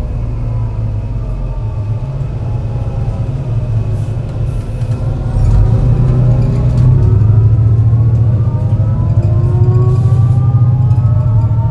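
MAN NL202 CNG bus engine pulling under load on a climb, with the whine of its ZF automatic gearbox. The whine falls in pitch over the first few seconds. About five seconds in it starts rising again and the engine gets louder, as after a gear change. The engine has a bad misfire.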